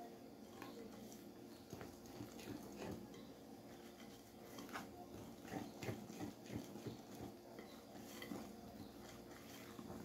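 Wire whisk stirring thick cornmeal cake batter in a glass bowl: faint, irregular scrapes and clicks of the wires against the glass, busiest around the middle, over a faint steady hum.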